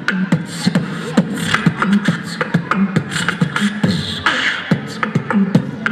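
Group beatboxing through a PA system: a steady beat of vocal kick, snare and hi-hat sounds with short, repeated low bass notes.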